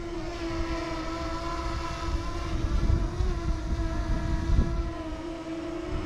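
DJI Mini 2 quadcopter hovering close by, its propellers giving a steady high whine, while gusty wind buffets the microphone with an uneven low rumble.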